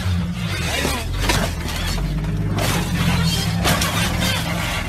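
Background music with the crunching and clattering of an off-road vehicle rolling over onto rock, in several separate crashes around one second in and again between about two and a half and three and a half seconds in.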